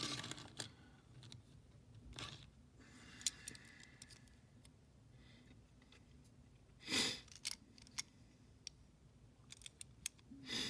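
Faint clicks and handling noise from a die-cast toy car being turned over in the fingers, with one louder brief rustle about seven seconds in.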